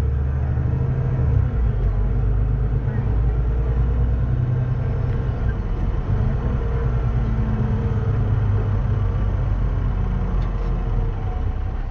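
Cummins ISBe 6.7-litre inline-six diesel of a VDL DB300 double-decker bus idling steadily, an even low rumble.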